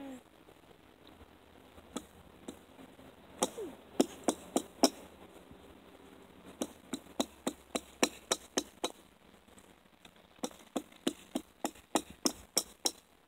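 Ice being chopped with a hand tool: sharp, hard strikes into thick pond ice, in three runs of quick blows a few per second, with short pauses between them.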